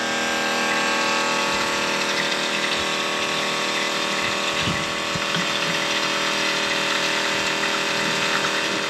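Diesel fuel pump running steadily, with fuel rushing from the nozzle into a tank.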